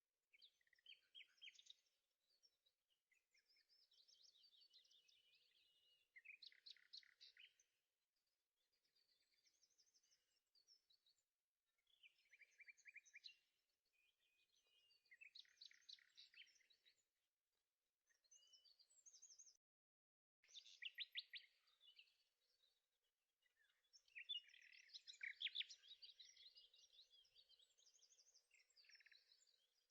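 Faint birdsong: phrases of quick, high chirps and trills that come again every few seconds, with short pauses between them.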